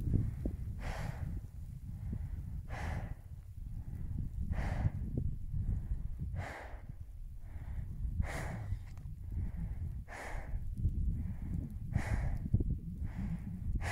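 A high-altitude mountaineer breathing hard on the final summit ridge of K2 at over 8,600 m, the laboured breathing of climbing in very thin air. Strong breaths come about every two seconds, with weaker ones between them, over a low rumble of wind on the microphone.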